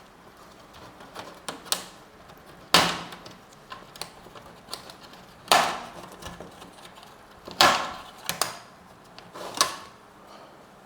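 Hard plastic clicks and clacks of a laptop being taken apart: four loud clacks about two seconds apart, with lighter ticks in between.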